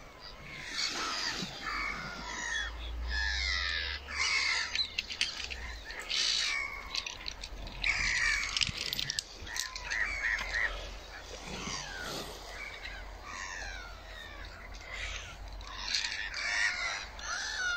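A large flock of seabirds on the sea calling, many short overlapping calls one after another, with wind rumbling on the microphone about three to five seconds in.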